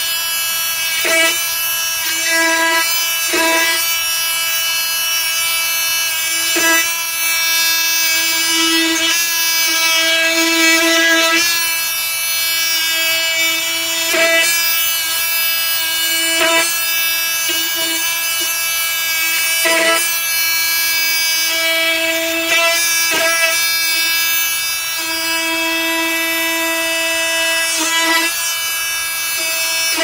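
Flex FX4111 cordless oscillating multi-tool running with a steady buzzing hum as its blade cuts through chunks of meat on a wooden board. About a dozen short, sharp knocks are spread through it.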